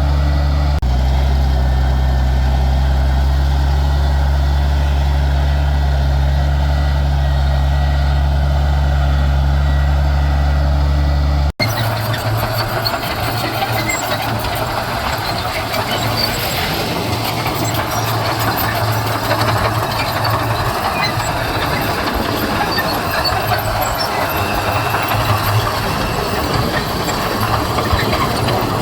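Heavy diesel earthmoving machinery running. The first third is a steady, even engine drone. After an abrupt cut it changes to a noisier engine sound with rattling and clinking.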